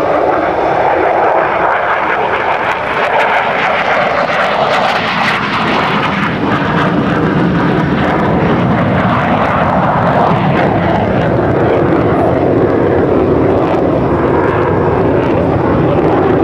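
USAF Thunderbirds F-16 Fighting Falcon's Pratt & Whitney F100 turbofan, a loud, steady jet noise as the fighter flies past, its tone slowly shifting lower over the pass.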